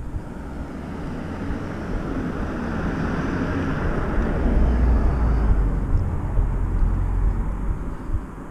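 A vehicle going past on the street: its tyre and engine noise grows over the first few seconds, peaks about halfway through, then fades away, over a low rumble of wind on the microphone.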